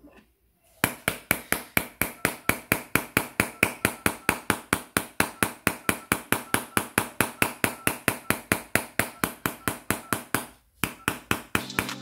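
Rapid, evenly spaced hard taps, about four a second, with a short pause near the end before they resume.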